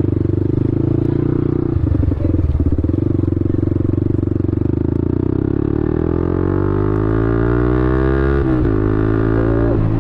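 Yamaha R15 V3's single-cylinder engine running under way. Its revs climb steadily from about halfway through until they drop suddenly near the end at a gear change, then it runs steady again.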